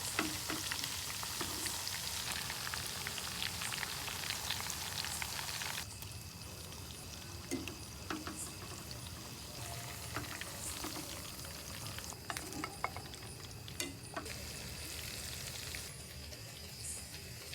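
Chicken pakoda deep-frying in hot oil: a dense sizzle full of crackles. About six seconds in the sizzle drops off to a quieter hiss with scattered pops and clicks.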